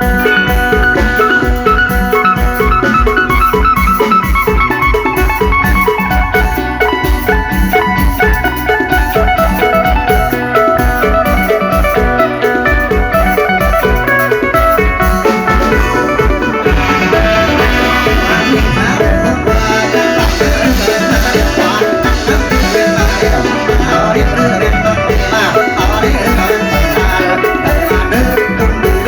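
Loud instrumental mor lam music: a bright plucked melody over a steady drum beat.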